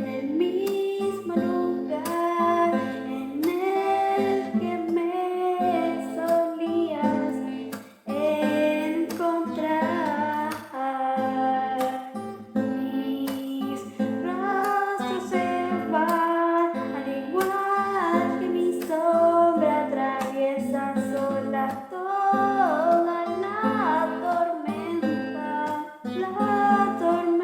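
An original song on guitar, with a female voice singing a bending melody over the playing; both drop out briefly about eight seconds in.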